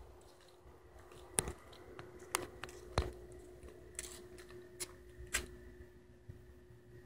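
Irregular sharp clicks, about six of them roughly a second apart, over a faint steady hum.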